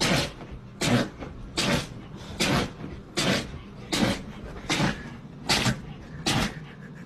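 A dog sneezing over and over: about nine short, sharp sneezes, evenly spaced at a little over one a second.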